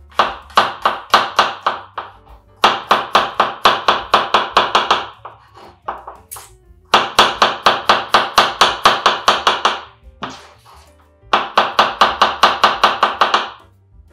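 A kitchen knife chopping onion on a cutting board in quick, even strokes, about five or six a second. The strokes come in four runs with short pauses between them.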